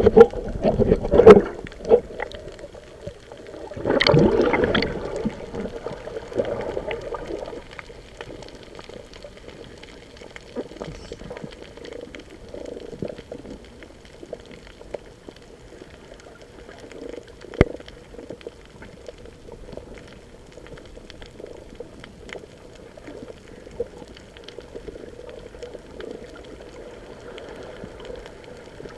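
Water bubbling and sloshing around the microphone in shallow water, with loud gushes near the start and about four seconds in, then a low steady wash with scattered clicks.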